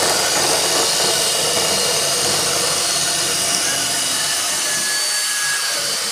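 Cordless drill running steadily, spinning a square wooden stick as it is forced through a hole in a steel dowel plate: the wood scraping against the steel as it is shaved round.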